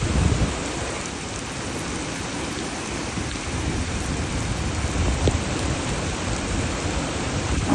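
Heavy rain pouring steadily, with a low rumble underneath that swells just after the start and again around five seconds in.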